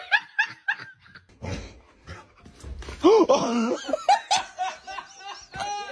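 People laughing in short repeated bursts, with a louder rising-and-falling voice about three seconds in.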